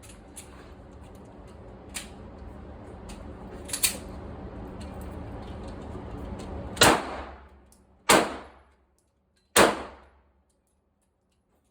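Smith & Wesson M&P Bodyguard .380 pistol being fired: three loud, echoing shots over about three seconds in the second half, with fainter sharp cracks earlier.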